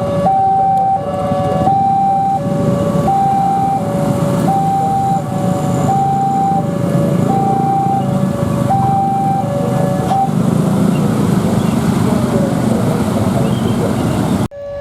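Railway level-crossing alarm sounding its two-tone hi-lo siren, the two tones swapping about every 0.7 seconds, until it stops about ten seconds in. A loud steady rumble runs underneath, and the sound cuts out abruptly near the end.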